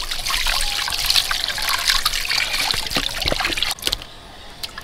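A stream of running water pours and splashes over whole fish in a steel basin while they are rubbed clean by hand. The water sound cuts off suddenly near the end.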